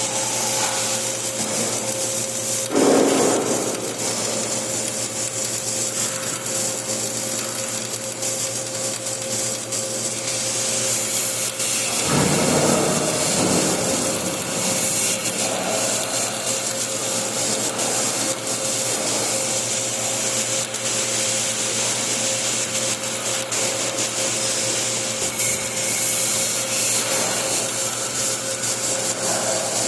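Flux-cored arc welding: a continuous crackling, sizzling arc as the bead is laid, with a brief louder flare about 3 s in and again about 12 s in.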